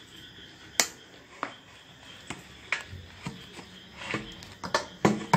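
Irregular light clicks and taps of a stirring stick against a small plastic cup as slime is mixed by hand, a few strikes coming close together near the end.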